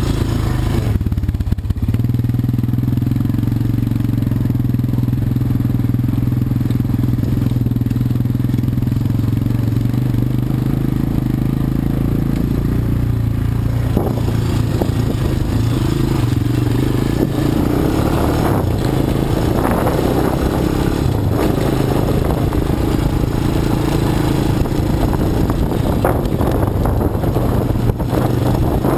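ATV engine running steadily under way. From about halfway its pitch wavers, and knocks and rattles join in.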